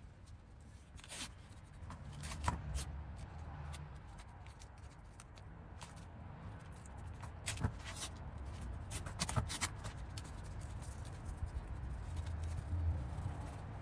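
Blue painter's tape being pulled off its roll and pressed by hand onto a metal part of a splitting maul's head, masking it for paint: short rips of tape and rustling handling, with several sharp ticks.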